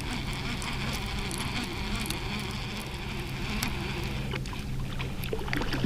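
Boat's outboard motor running steadily at trolling speed, a constant low hum with water and wind noise over it, and a few faint clicks in the second half.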